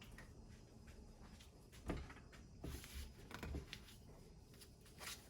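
Quiet room tone with a few light knocks and clatters of parts being handled: one about two seconds in, a short cluster a second later, and another near the end.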